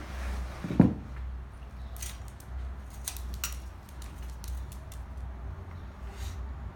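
A dog and a cat scuffling in play on a tile floor: one loud thump about a second in, then scattered light clicks and scrapes of paws and claws on the tiles.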